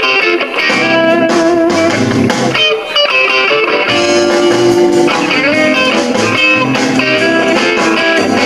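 Electric blues instrumental: a Telecaster-style electric guitar played through a small combo amp, with a harmonica over it.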